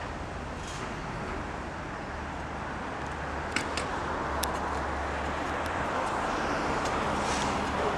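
City street traffic noise: a steady wash of passing vehicles with a low rumble, growing louder from about the middle, with a few sharp clicks or knocks around the middle.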